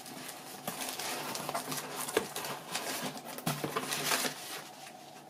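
Cardboard box flaps and packing paper rustling and crinkling with small irregular taps and scrapes as a parcel is opened by hand.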